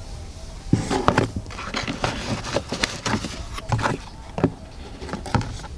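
Small cardboard boxes being handled and shuffled on a wooden shelf: a busy run of crackling rustles, taps and knocks, starting about a second in.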